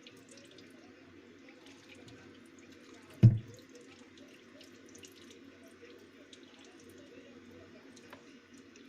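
Water trickling and dripping as hot water is poured down a refrigerator's clogged freezer defrost drain tube to flush it clear. One loud, short, low thump about three seconds in.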